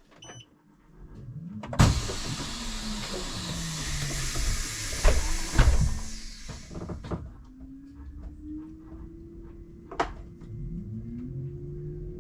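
Volvo 8900 city bus: a loud hiss of compressed air starts sharply about two seconds in and lasts about five seconds, with two thumps in it. Then a rising engine and drivetrain whine as the bus pulls away, and a single click near the end.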